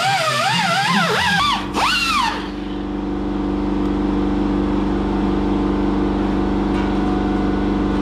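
Small pneumatic grinder grinding rust off a car's rocker panel, its high whine rising and falling as it is pressed against the metal, then stopping about two seconds in. A steady machine hum with several held tones starts just before it stops and runs on.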